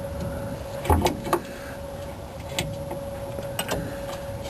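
A few sharp metallic clicks and clinks of a wrench on the lower shock-absorber bolt as the bolt is worked loose and removed, over a steady faint hum.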